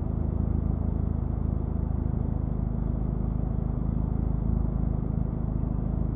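Steady low hum of a car engine idling, heard from inside the cabin through a dash camera's microphone, with a dull background rumble and no sudden events.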